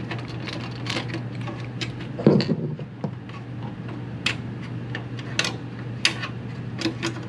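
Small metal clicks and ticks as a screw is backed out with a screwdriver and the metal PCIe slot cover is worked loose from the NAS's steel chassis, with a louder knock about two seconds in. A steady low hum runs underneath.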